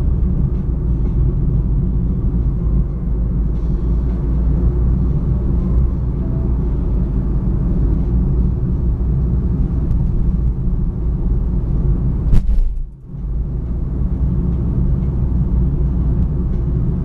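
Steady low road and engine rumble heard inside a moving car's cabin. About twelve seconds in there is a single sharp knock, followed by a brief dip in the noise.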